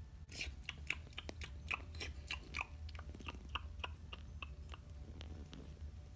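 Crunchy chewing sounds, about four crunches a second, standing in for the toy dogs eating bacon; they thin out near the end.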